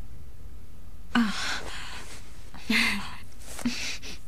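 A woman's breathy exhalations, like short sighs: two stronger ones about a second apart, each with a brief falling voiced tone, then two fainter ones near the end, over a steady low background hum.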